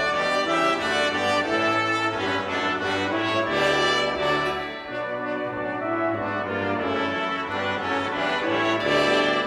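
Instrumental music led by brass, with held notes changing every second or so.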